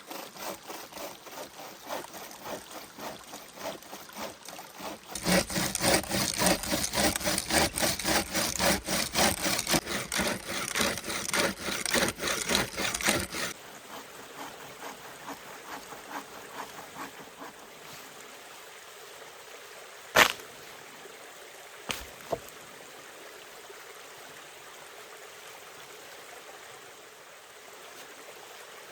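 Hand saw cutting through wood in quick, even strokes, much louder from about five seconds in and stopping about halfway through. After that a stream runs steadily, with one sharp knock and then two smaller knocks a couple of seconds later.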